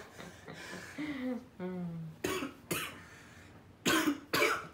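A boy coughing: four harsh coughs in two pairs in the second half, the last two the loudest, after a brief low groan. He is coughing from the burn of a spicy jelly bean.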